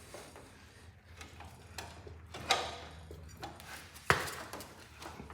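A few scattered knocks and clunks as a Cub Cadet transmission is jacked up and worked into the tractor's frame channels, with two sharper knocks about two and a half and four seconds in.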